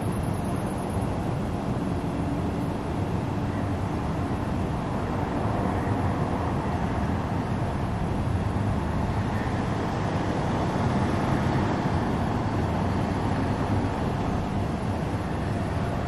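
Steady low outdoor rumble with a hiss over it and no distinct events, swelling a little midway.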